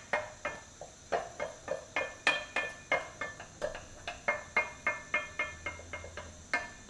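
A spoon knocking against a metal frying pan as onions are stirred: quick clacks, about three or four a second, each with a short metallic ring.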